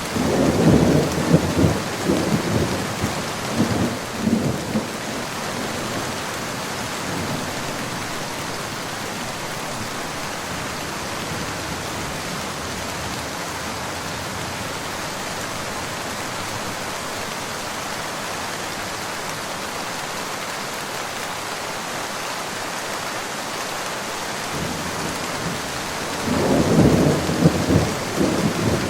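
Steady rain falling in a forest, with rolling thunder rumbling at the start and again near the end.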